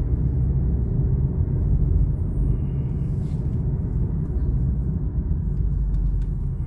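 Steady low rumble of a car driving along the road, with engine and tyre noise heard from inside the cabin.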